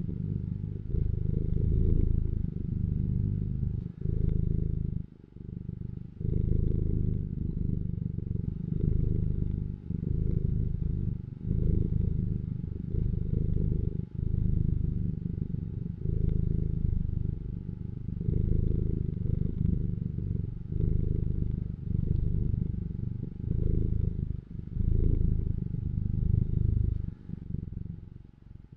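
Domestic cat purring: a steady low rumble that pulses with its breathing, dipping briefly every couple of seconds.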